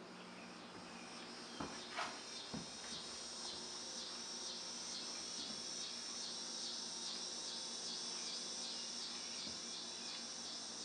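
An insect, such as a cricket, chirping in a high, fast and even pulse, with a few soft knocks near the start.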